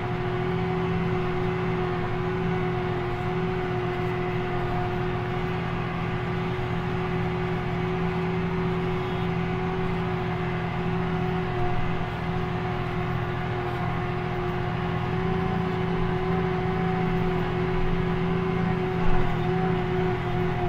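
McCormick G135 Max tractor engine running steadily under load while pulling a plough, heard from inside the cab, with a constant droning pitch. There is one brief louder knock near the end.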